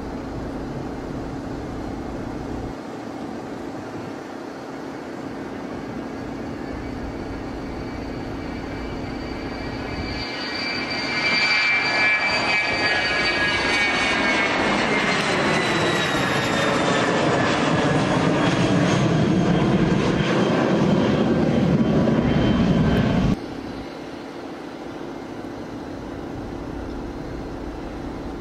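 Twin-turbofan business jet taking off: steady engine noise during the takeoff roll, growing louder about ten seconds in as the jet climbs past, with a high turbine whine that falls in pitch. The sound cuts off abruptly near the end and gives way to the quieter, steady distant noise of an Embraer Phenom 100 jet on approach.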